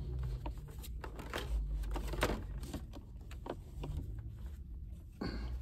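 Plastic packaging and trading cards being handled and opened: irregular small crinkles and clicks over a low steady rumble.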